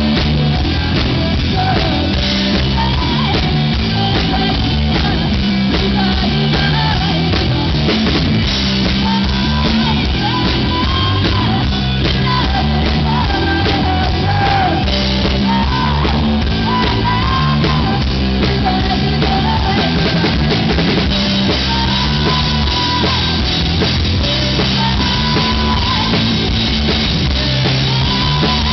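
Live rock band playing loudly through a PA: a woman sings the melody over electric bass, electric guitar and a drum kit, with no break.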